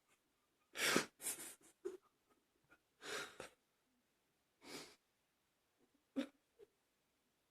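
About six short, breathy bursts of air from a person's mouth and throat, spaced a second or so apart, the loudest about a second in.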